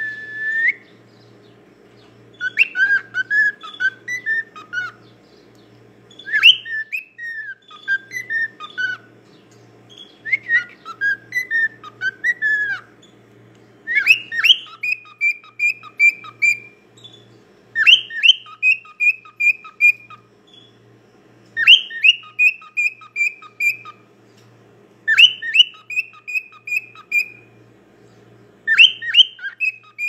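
Male grey cockatiel whistling a short phrase over and over, about eight times, roughly every three to four seconds. The later phrases open with a quick rising sweep and then a run of short notes on one pitch.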